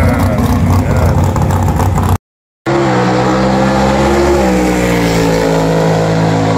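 Vintage drag-race car engines running: first a rough, loud engine sound, then, after a brief dropout about two seconds in, a steadier engine hum that eases slightly lower in pitch about halfway through.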